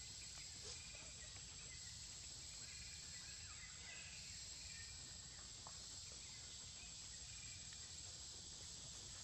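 Faint outdoor forest ambience: a steady high-pitched insect drone with a few faint, scattered bird chirps.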